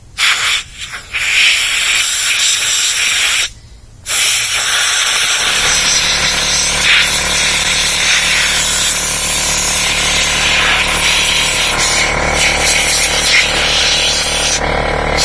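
Compressed-air blow gun blasting dirt off a chainsaw: a loud, steady hiss that cuts off twice in short pauses near the start, then runs on unbroken, with a low steady hum underneath from about five seconds in.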